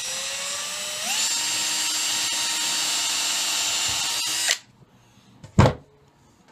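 Cordless drill boring straight down through an oak dowel. The motor's whine rises in pitch over the first second as it speeds up, holds steady for about three more seconds, then cuts off suddenly. About a second later there is a single loud thump.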